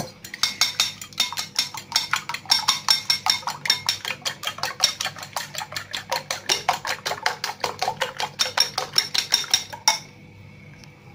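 Metal fork beating raw eggs in a ceramic bowl: a fast, even clatter of the fork tapping against the bowl, about seven strokes a second. It stops about ten seconds in.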